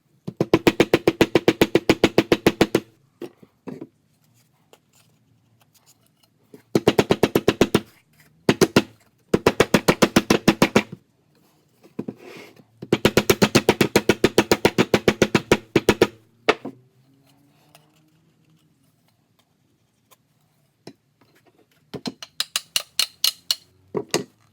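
Rapid light hammer taps on a loudspeaker's bent metal frame, about eight or nine strikes a second, in several runs of one to three seconds with pauses between: fine straightening of the frame so the cone no longer scratches.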